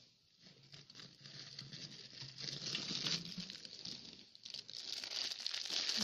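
Clear plastic wrapping crinkling and crackling as it is handled, with many small clicks, growing louder in the second half.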